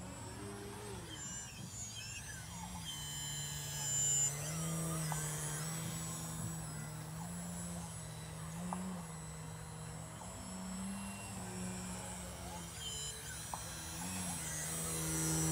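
Radio-controlled aerobatic plane's electric motor and propeller buzzing steadily, its pitch rising briefly several times with bursts of throttle. It grows louder near the end as the plane comes in low.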